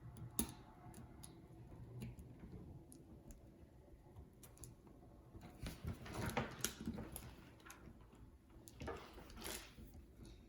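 Faint clicks and short scraping sounds of small repair tools and iPhone parts being handled, with one sharper click near the start.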